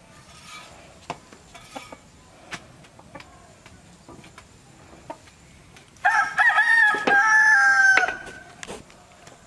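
A rooster crowing once, about six seconds in, a loud call of about two seconds whose pitch drops slightly at the end. Scattered light knocks and clicks come before it.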